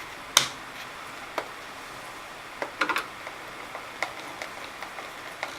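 Scattered clicks and taps of the stick vacuum's plastic parts being handled and fitted, as the handle clip goes back on: a sharp click about half a second in, another about a second later, and a quick run of clicks near the middle.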